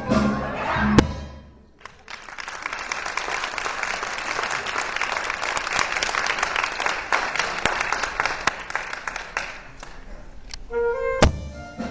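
Audience applauding for several seconds after the band's closing chord, which ends with a loud hit about a second in. Near the end the band starts up again with a sharp hit.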